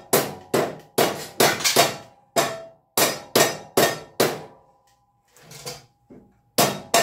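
Hammer tapping on steel at a motorcycle frame mount: a quick run of sharp metal-on-metal blows, about two a second, each with a brief metallic ring. After about four seconds a short pause, then lighter taps and a hard blow near the end.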